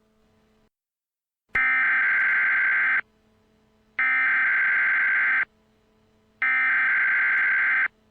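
Emergency Alert System SAME header: three loud bursts of digital data tones, each about a second and a half long with about a second between them, over a faint steady low hum. The bursts begin about a second and a half in.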